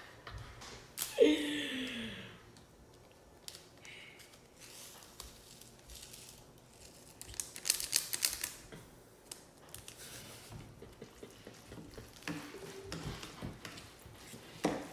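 Small plastic noodle sauce sachet crinkling and rustling as it is handled and torn open, in scattered short clicks with a denser crinkly burst about halfway through. A brief vocal sound about a second in.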